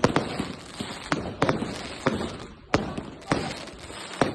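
Fireworks going off in an irregular string of sharp bangs, about two a second, each followed by a short echo.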